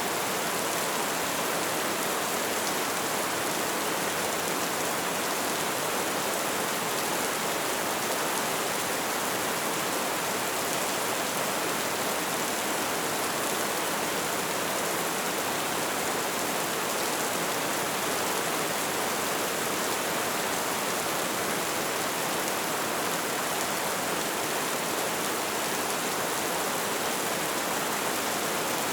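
Steady rain falling: an even, unchanging hiss with no single drops or thunder standing out.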